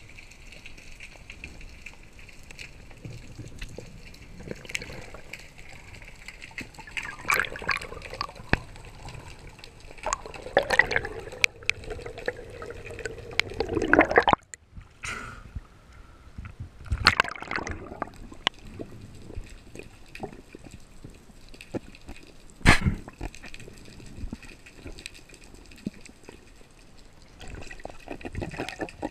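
Water and bubble noise around a diver's camera, with bursts of gurgling and sloshing that come and go. One sharp crack stands out about two-thirds of the way through.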